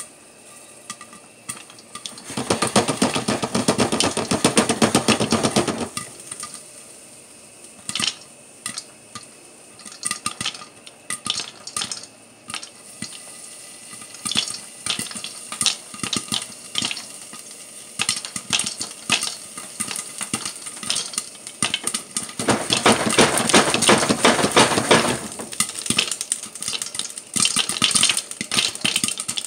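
Popcorn kernels popping in hot butter under the glass lid of a stainless pot on the stove: irregular sharp pops that come thicker as the batch gets going. Twice, about two seconds in and again a little past twenty seconds, there is a few seconds of dense clattering.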